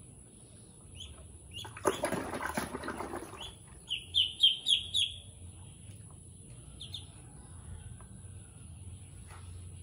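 Ducklings peeping in a plastic tub of water, with a splash of water and flapping lasting about a second and a half, then a quick run of five loud, short, falling peeps.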